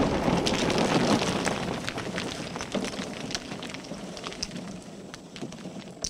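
Sound effect of a wall shattering into rubble: a crumbling rush of debris with many scattered clatters of falling fragments, fading gradually, and one sharp hit at the very end.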